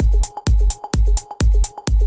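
Electronic dance music with a heavy kick drum about twice a second, hi-hats between the beats and a short repeating high note.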